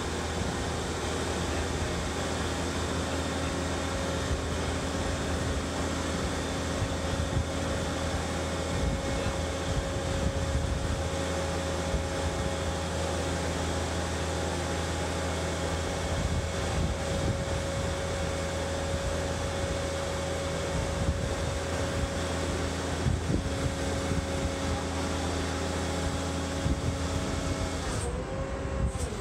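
Boat travel lift's engine and hydraulic drive running with a steady hum as it lowers a sailboat in its slings. Near the end the hum drops in pitch and the higher hiss cuts out as the lift slows.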